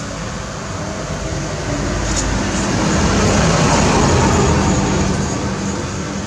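Street traffic noise, swelling to a peak about four seconds in and fading again as a vehicle passes close by.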